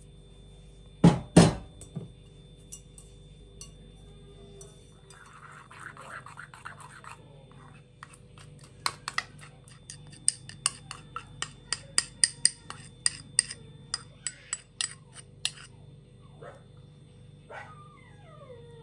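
Kitchen utensils against a glass mixing bowl of ground walnuts: two loud knocks about a second in, a short scrape a few seconds later, then a long run of quick sharp clicks as plum paste is spooned into the bowl.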